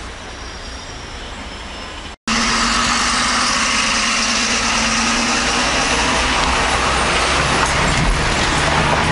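Road traffic heard from inside a taxi: low, steady cabin and engine noise while it sits in stopped traffic. After an abrupt cut about two seconds in comes much louder engine and road noise with a steady low hum, as the taxi moves close alongside a bus.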